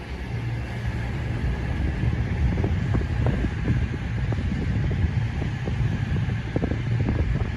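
A CrossCountry class 221 Super Voyager diesel-electric train arriving, with a steady low rumble from its underfloor diesel engines. Irregular short knocks come in from about two and a half seconds in.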